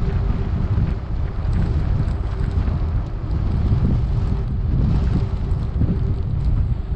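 Wind buffeting the microphone, a loud gusty rumble. A faint steady hum runs under it and stops about six seconds in.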